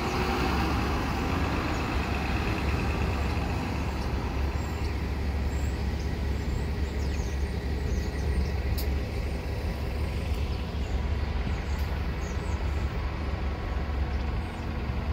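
Nova Bus LFS city bus pulling away from a stop, its diesel engine running up at first under a steady low street-traffic rumble that goes on throughout.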